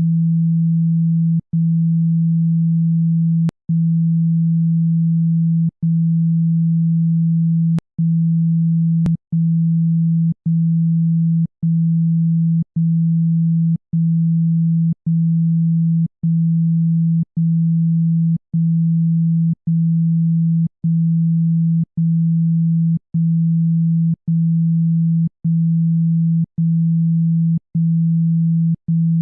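Speaker-cleaning tone: one low, steady sine tone meant to vibrate water and dust out of a phone speaker, broken by brief gaps about once a second.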